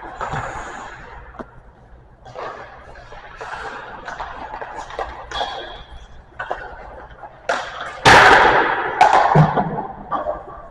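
Ice rink play: skate blades scraping the ice, with sharp knocks and slaps of pucks and sticks, and a loud burst of scraping and impact about eight seconds in.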